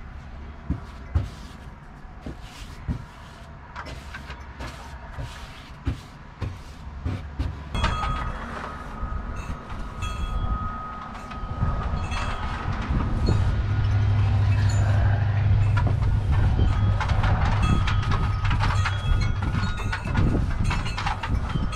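A low mechanical rumble with a thin steady whine sets in about a third of the way in and swells to a loud, steady drone. Before it, light taps and scrapes of a paintbrush on the cabinet wood are heard.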